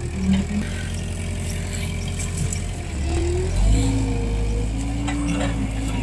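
A nearby engine running steadily. About three and a half seconds in it picks up: the low hum gets louder and its pitch steps up, as if under more throttle.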